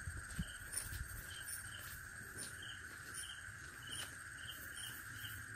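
Night insect chorus: a steady shrill drone with crickets chirping in a regular rhythm, about two chirps a second.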